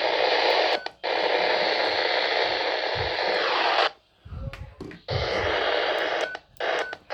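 Steady hiss of radio static from a receiver. It cuts out briefly about a second in, again for about a second near the middle, and once more near the end.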